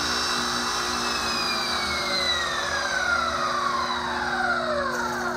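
Electric pressure washer motor driving an oil pump through a router speed controller, its whine sliding steadily down in pitch as the controller knob is turned down, the motor slowing under the controller's working triac speed control. A steady low hum runs underneath.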